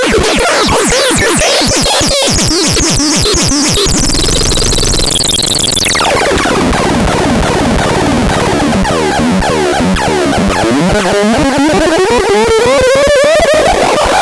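Harsh electronic noise synthesizer playing dense, chaotic sweeping tones. The texture changes abruptly about six seconds in, and a rising pitch glide builds over the last few seconds.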